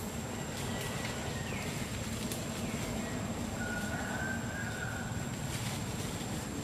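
Forest ambience: a steady low rumble under a constant thin high-pitched tone, with a few short falling chirps in the first three seconds and one longer held whistle-like call about four seconds in.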